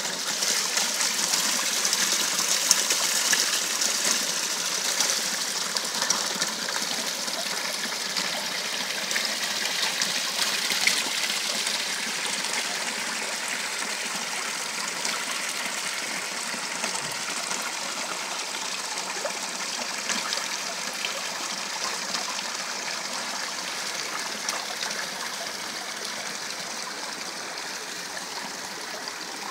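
Water from a rock-garden fountain splashing and trickling over stone into a shallow pool: small cascades and sheet spillways making a steady hiss, a little louder in the first few seconds.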